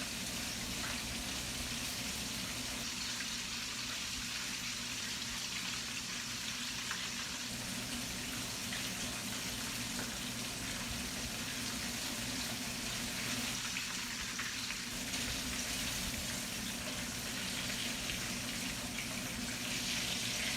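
Chicken wings frying in hot oil, a steady, even sizzle that is done golden brown, over a low steady hum.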